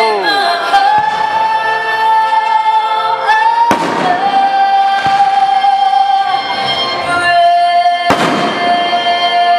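Music with a singer holding long, high notes that step in pitch a few times, over two firework bursts about four and eight seconds in.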